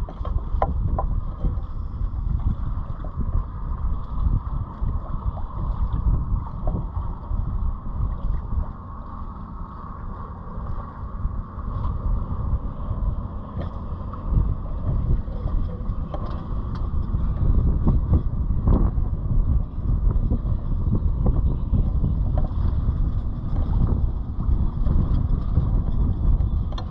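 Wind buffeting the microphone aboard a sailboat under sail: an uneven low rumble that grows louder in the second half.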